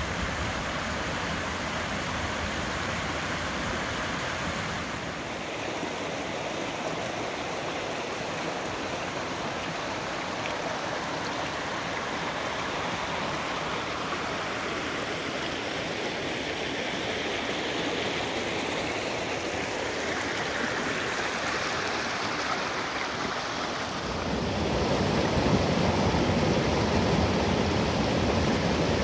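Creek water rushing over rock ledges and small cascades, a steady splashing rush. About three-quarters of the way through it grows louder and fuller as the water pours between boulders.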